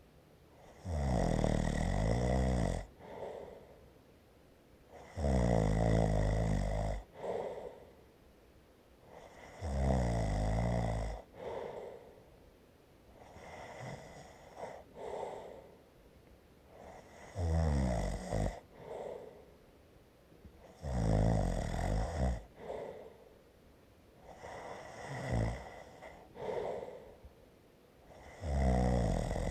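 A person snoring: loud snores in a slow rhythm about every four seconds, each followed by a softer, shorter breath, with a longer pause between snores about halfway through.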